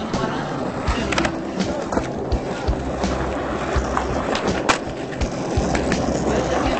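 Skateboard wheels rolling on asphalt, with sharp clacks from the board now and then.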